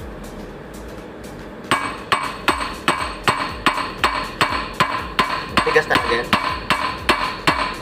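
Hammer blows on metal in a Volvo truck engine block during cylinder liner removal. A steady series of strikes begins about two seconds in, roughly two to three a second, each with a metallic ring.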